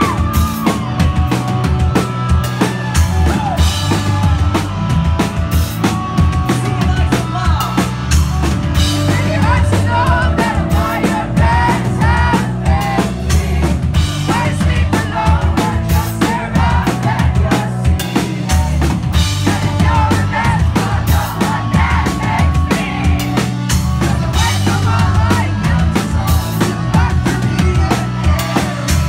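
Live pop-punk band playing a song at full volume: a drum kit with steady kick and snare hits, sustained bass notes and electric guitars.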